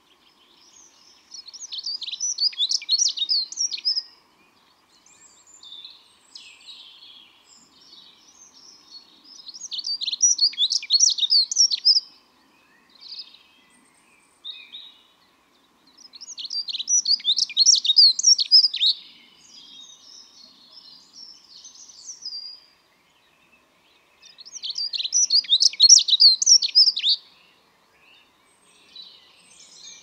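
Dunnock singing: four quick, high, warbling song phrases, each about two to three seconds long and several seconds apart, with fainter high chirps in the gaps.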